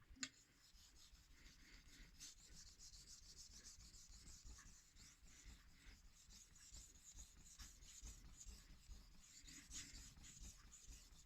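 Faint scraping of a knife blade stroked over an 800-grit Naniwa Superstone whetstone, raising a burr, with a short click just after the start.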